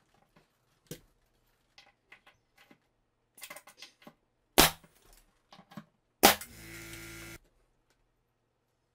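Pneumatic trim nailer firing twice, about a second and a half apart, as it drives nails into trim on a painted panel. Light clicks and knocks come before the shots, and the second shot is followed by about a second of steady rushing noise.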